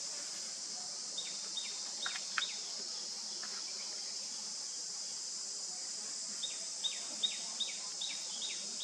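Steady high-pitched insect drone, with runs of short chirps that fall in pitch, about three a second, in the first few seconds and again near the end.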